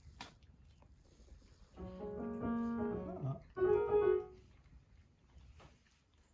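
Two short phrases of piano-like chime notes, several pitches each, the second shorter and louder, about two seconds in all.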